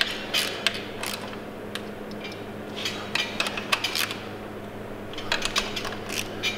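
Hand ratchet clicking in several short runs as a bolt is turned in on the engine's front accessory bracket, with small metal tool clinks, over a steady low hum.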